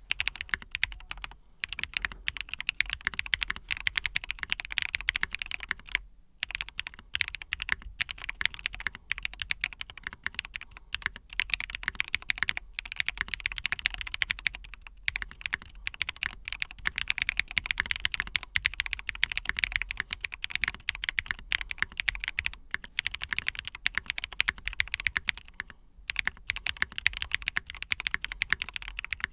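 Fast, continuous typing on a newly built Intro S100 mechanical keyboard during a typing sound test: dense key clicks with a few short pauses.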